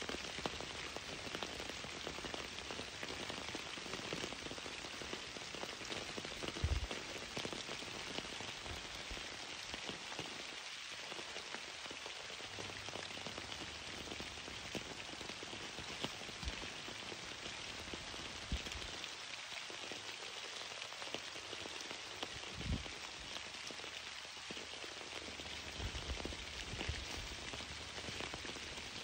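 Steady rain falling, an even hiss of many drops, with a few soft low thumps, the loudest about seven seconds in.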